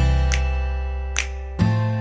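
Background instrumental music: pitched notes with a deep bass, struck near the start and again about one and a half seconds in, each fading away, with light ticks of percussion between them.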